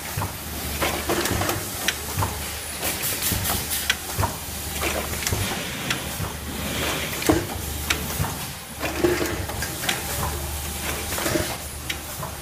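Rotary bottle capping machine running: a steady low hum with frequent, irregular clicks and clinks as small bottles and their caps move around the rotary table and cap chute.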